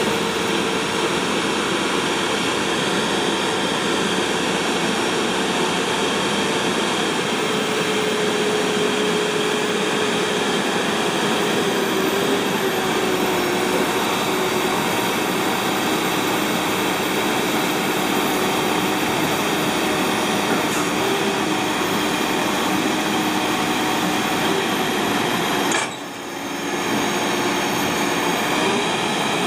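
Caterpillar TL1055C telehandler's diesel engine running steadily under hydraulic load as the boom is raised and lowered, with a constant tone that wavers slightly in pitch. The sound drops briefly near the end.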